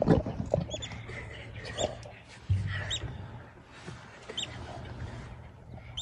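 Snarling and scuffling animals at the start as a leopard and a spotted hyena grapple. Short high bird chirps recur every second or so. A dull low thump comes about two and a half seconds in.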